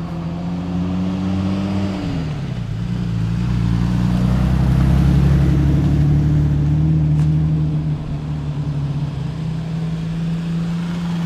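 A motor running steadily with a low hum. Its pitch drops about two seconds in and then holds, growing a little louder in the middle.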